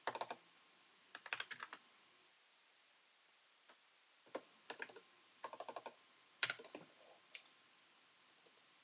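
Computer keyboard typing in short bursts of quick keystrokes, with a quiet pause of about two seconds in the first half.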